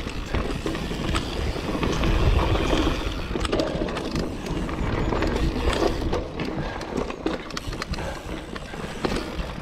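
Mountain bike riding fast over a dry dirt trail: tyres rolling and crunching on loose ground, with frequent rattles and clicks from the bike and a low rumble of wind on the microphone.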